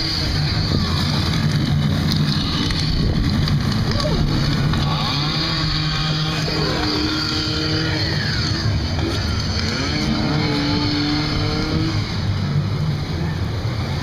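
Rushing river-rapids water churning around a round rafting-ride raft, heard as a steady loud rush with a low hum under it. Riders' voices rise and fall over it now and then.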